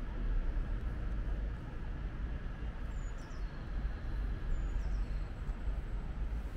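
Steady low outdoor rumble of city ambience, with a small bird giving two short high chirps, about three and four and a half seconds in.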